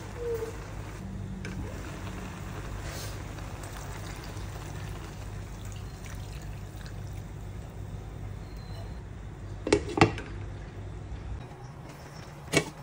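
Chop suey sauce mix poured from a glass bowl into a wok of vegetables, then a glass pot lid set on the pan with two quick clinks about ten seconds in and another clink near the end. A steady low hum runs underneath and stops shortly before the end.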